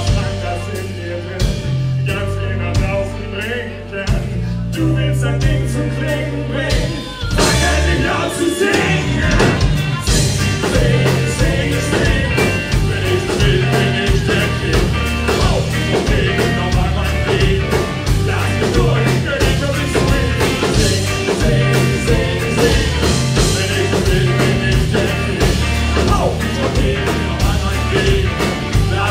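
A live band playing. For the first several seconds it is thinner and led by the bass, and then the full band with drums comes in and plays on with a steady beat.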